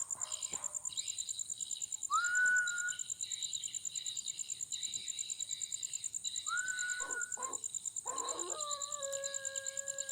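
A person whistles two single notes about four seconds apart, each gliding up and then held for about a second, over the steady chirring of night insects. Near the end, a held chord of several steady tones begins.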